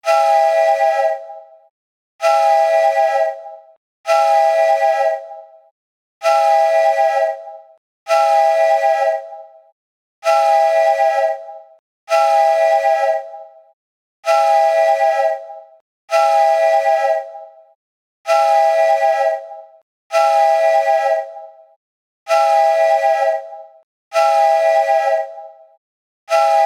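Phone alarm ringtone: a whistle-like chord of a few steady tones, held about a second and then fading quickly, sounding again about every two seconds.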